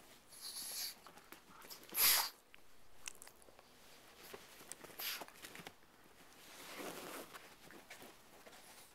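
Pug sniffing and snuffling in short noisy bursts while nosing at a stuffed toy bone, the loudest burst about two seconds in.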